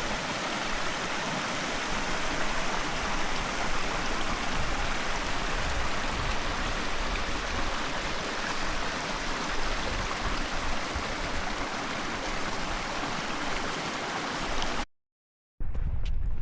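Rushing water of a mountain stream or small waterfall: a steady, even rush that cuts off suddenly near the end.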